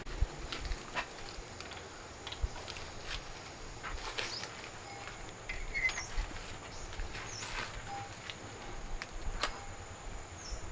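Countryside outdoor ambience: a steady thin high insect drone, with scattered soft taps and rustles and a few short high chirps.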